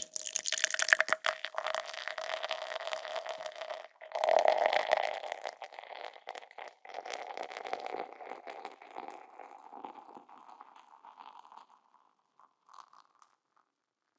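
Beer being poured into a glass: a pour of about four seconds, a short break, then a second pour that starts strongly and gradually trails off, with a few faint trickles near the end.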